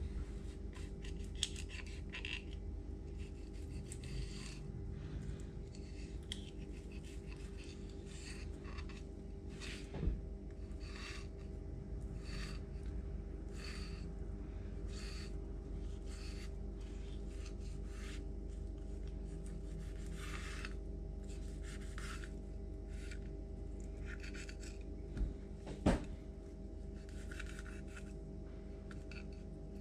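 Kitchen knife scraping along a trout's rib bones in short repeated strokes, about one every second, as the belly is cut away from the ribs. A steady low hum runs underneath, with two light knocks, one about ten seconds in and one near the end.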